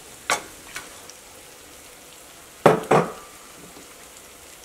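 Egg and masala sizzling steadily in a stainless steel pan, with a knock shortly after the start and two loud clanks just under three seconds in, the second leaving a brief metallic ring, as a metal spatula scrapes raw chicken pieces into the pan from a container.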